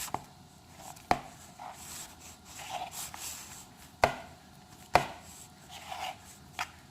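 A mixing utensil knocking sharply against the bowl about five times, with soft scraping between, as the powdery snow-slime mixture is stirred.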